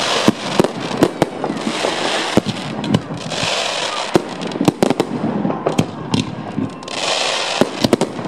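Fireworks salute at close range: aerial shells and stars bursting in a dense run of sharp bangs, several a second, with stretches of hissing crackle about two, three and a half and seven seconds in.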